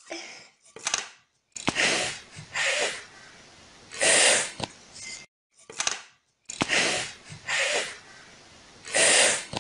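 A child repeatedly making the voiceless /f/ sound: a breathy "fff" hiss blown between the upper teeth and lower lip, about ten short puffs with brief gaps between them.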